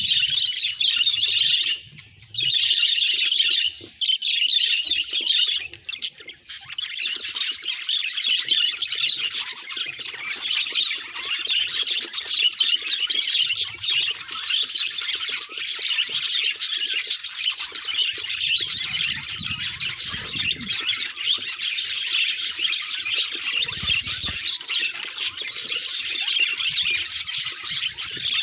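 Budgerigars chattering and warbling continuously, a dense run of high chirps and squawks, with a few short breaks in the first six seconds.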